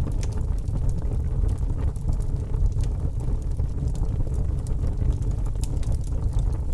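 Wood fire burning with a large flame: a steady low roar of flame with scattered sharp crackles and pops from the burning wood.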